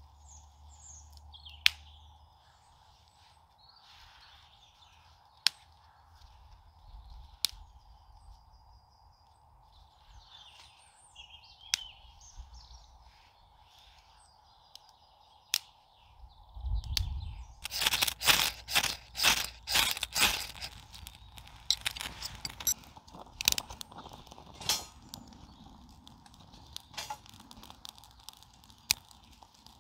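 Small birds chirping and a few sharp snaps of twigs, then, a little past halfway, a quick run of loud, harsh rasping strikes as a ferro rod is scraped to throw sparks into kindling in a small folding wood stove; the strikes thin out to a few scattered scrapes.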